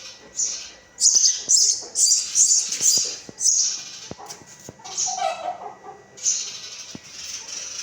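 Baby birds cheeping in a string of high-pitched calls, loudest between one and three and a half seconds in, with a few light knocks.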